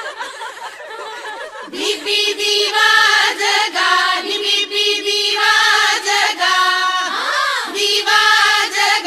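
Background music with singing voices, softer at first and louder from about two seconds in, with a sung note swooping up and down near the end.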